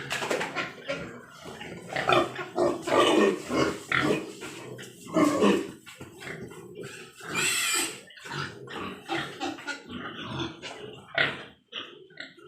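Large White Yorkshire pigs calling, many short irregular overlapping sounds, with one louder, shriller squeal about seven and a half seconds in.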